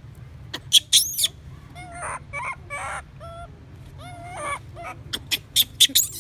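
Baby macaque giving distress cries: a string of short, high-pitched wavering whimpers, with shrill squeals about a second in and again near the end.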